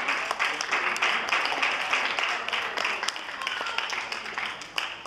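Guests applauding, the clapping thinning out and dying away near the end.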